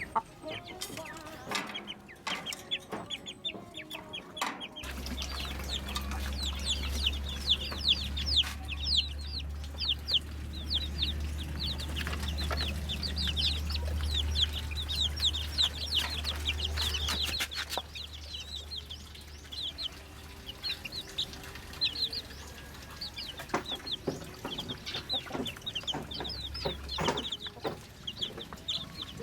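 Chickens clucking and peeping in a dense run of short, high calls, with a low steady rumble underneath for much of it.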